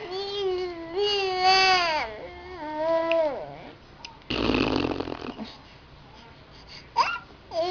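Baby vocalizing in long, held, high 'aah' sounds that fall off at the end, trying to copy a fart noise. About four seconds in comes a short spluttering blown fart noise, a raspberry, and near the end a quick rising squeal.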